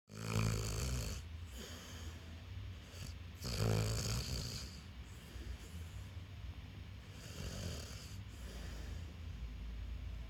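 Snoring: two loud rasping snores, one at the start and one about three and a half seconds in, then softer snoring breaths.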